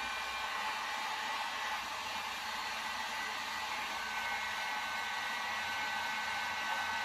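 Electric heat gun running steadily, blowing hot air onto adhesive-lined heat-shrink tubing to shrink it over a crimped wire connection. It makes an even fan rush with a thin steady whine.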